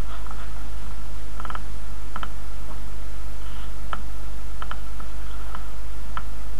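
Scattered light clicks and taps of hands working food on a hard lap tray, coming irregularly, some in quick little clusters, over a steady low electrical hum.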